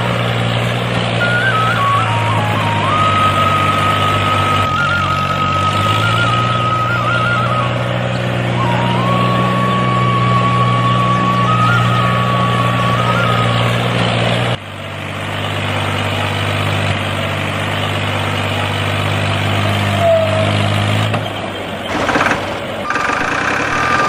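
Tractor engine running steadily, with a high, wavering whistle-like tune over it for the first half. The engine sound changes abruptly about fourteen seconds in, and a few short louder sounds come near the end.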